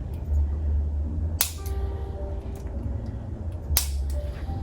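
Two sharp cracks about two seconds apart, from a chiropractic spinal adjustment.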